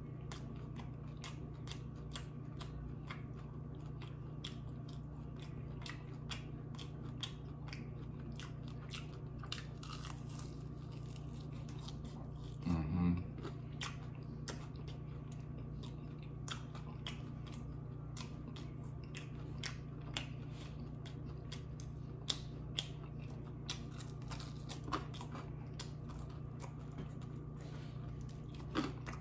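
Close-miked biting and chewing of crunchy fried chicken wings: many short, sharp crackles of the fried breading breaking between bites, over a steady low hum. About halfway through there is one brief, louder low sound.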